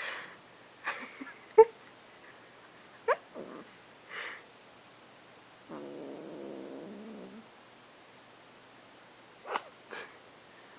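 Persian Chinchilla kitten making a string of short, squeaky meows and chirps while being brushed. A sharp call about one and a half seconds in is the loudest, and a longer, lower drawn-out call comes about six seconds in.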